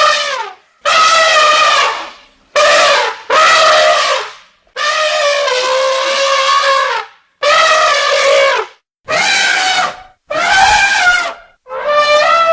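Elephant trumpeting: a run of about nine loud, brassy blasts, each one to two seconds long with short gaps between, some bending in pitch. The longest call comes near the middle.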